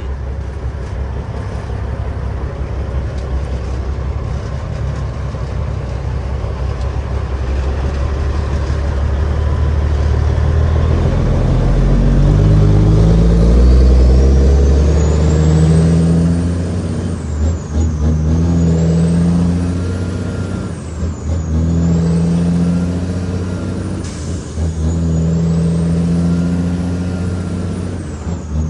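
Heavily loaded Kenworth W900L's Cat 6NZ inline-six diesel pulling hard. The engine runs steadily at first, then its revs climb from about halfway in and drop several times at short, even gaps as it shifts up through the gears. A high whistle rises and falls with the revs.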